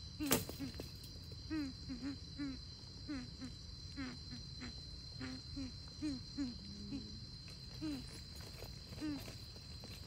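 Greater coucal giving a long series of short, deep, falling hoots, roughly two a second, over a steady high insect trill. A single sharp click comes just after the start.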